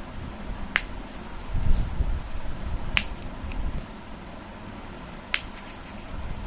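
Three sharp single pops, about two seconds apart, as bubbles of a homemade pop-it fidget toy are pressed through, with a low rumble of handling noise between the first two.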